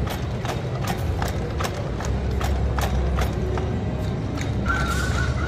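Footfalls of a four-legged robot dog tapping on a concrete floor as it walks, in an even rhythm of about two to three steps a second, over a steady low hum.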